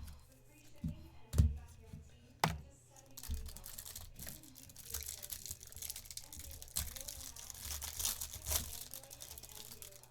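Wrapper of a sports-card pack crinkling and tearing as it is opened by hand, with a couple of sharp knocks on the table before the rustling.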